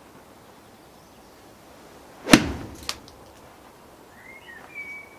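A golf iron strikes a ball off a driving-range mat with one sharp crack a little over two seconds in, followed by a lighter click about half a second later. A bird chirps near the end.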